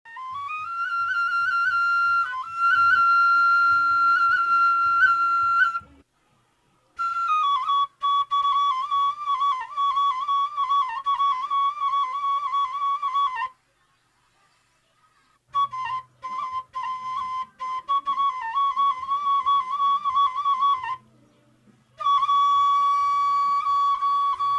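Background music: a solo flute playing long, ornamented phrases that hover around one note with quick trills, separated by short pauses, over a faint low accompaniment. The first phrase sits a little higher than the rest.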